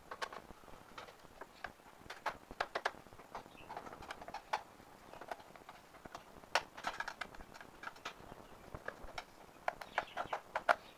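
Irregular small clicks and taps of a screwdriver unscrewing the screws in an induction cooktop's plastic base, with the plastic casing being handled.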